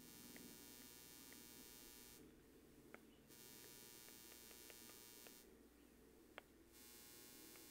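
Near silence: faint steady microphone hiss and hum, with a few faint ticks.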